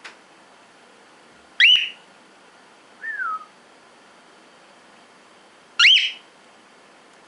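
Cockatiel sneezing twice, about four seconds apart, each sneeze a sharp, squeaky burst that sweeps up in pitch. A softer, falling peep comes between them.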